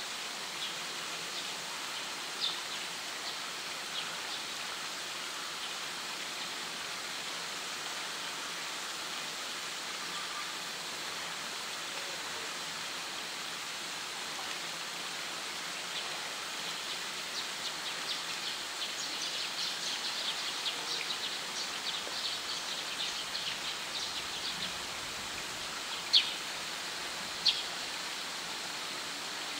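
Steady rushing hiss of running water, with scattered short high ticks that grow busier in the middle. Two sharper clicks near the end are the loudest sounds.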